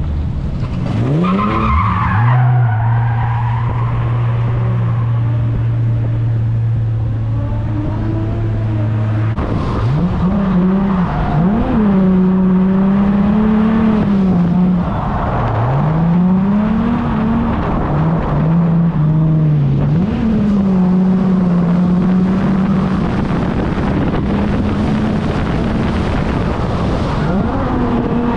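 V6 Holden Commodore engine revving hard while drifting, with tyres skidding and squealing. About two seconds in it holds one steady pitch for several seconds, then the revs rise and fall over and over with the throttle.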